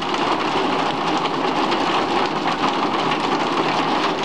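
Heavy rain falling steadily outdoors, a dense even hiss with scattered drop splashes.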